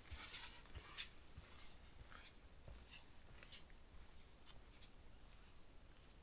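Near silence, with faint scattered clicks and rustles about once a second, a little stronger in the first two seconds and then fading.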